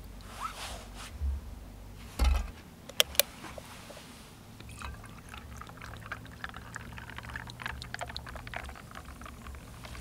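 Liquid being poured into a container, its pitch rising briefly as it fills, followed by a couple of low knocks and two sharp clicks, then a run of fine crackling ticks.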